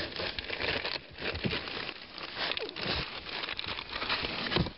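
Plastic bag and cardboard box rustling and crinkling in irregular bursts as a hand rummages inside the box and pulls out bagged parts.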